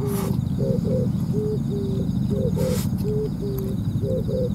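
An Oriental turtle dove is cooing its repeated low phrase, a long hoot followed by shorter paired notes, about every 1.7 seconds, so the phrase comes close to three times. Under it runs a steady low rumble, and two brief hissing bursts come at the start and a little past halfway.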